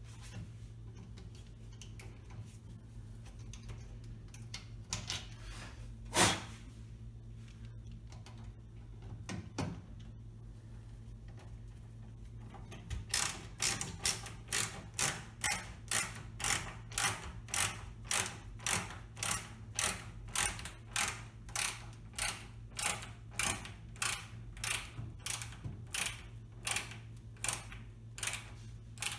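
A hand ratcheting screwdriver with a Torx bit clicks evenly, about two clicks a second, through the second half as a mounting screw is driven to fix a built-in oven into its cabinet. A single sharp knock comes about six seconds in, with a few scattered taps before the clicking starts.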